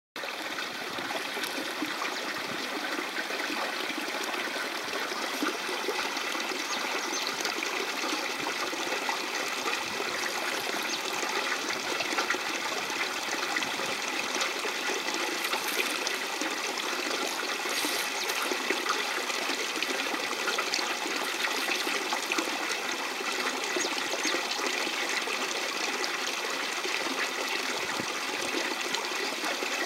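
Steady running water, a trickling stream, flowing evenly throughout.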